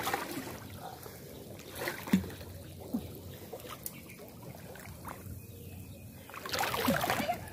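Water splashing and sloshing in short scattered bursts as people wade through it, with a longer, louder stretch of splashing near the end.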